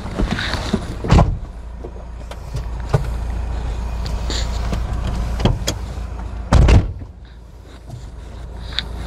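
Toyota Hilux pickup driving over loose sand, heard from inside the cab: a steady low rumble of engine and tyres. Sharp knocks and thumps come as the cab jolts over the ruts, the loudest about two-thirds of the way through.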